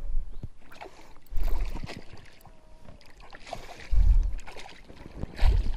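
Wind buffeting the microphone in four short, low rumbling gusts: one at the start, one about one and a half seconds in, one about four seconds in and one near the end.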